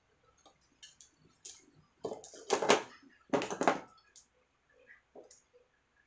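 Hands working power-supply wires: small clicks and taps, then three loud scraping rasps about two to four seconds in.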